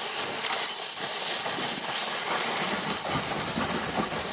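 Steam locomotive pulling passenger coaches past, with a steady loud hiss of steam and a faint clatter of wheels on the track.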